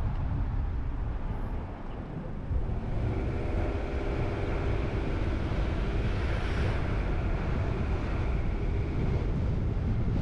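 Steady low rumble of road and wind noise from a car driving at city speed. An oncoming van passes around the middle, adding a humming tone that swells and then fades.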